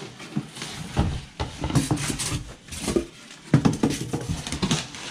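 Packaging handled in irregular rustles and knocks: a wrapped AV receiver pulled out of its foam end caps and cardboard box, its plastic wrap crinkling.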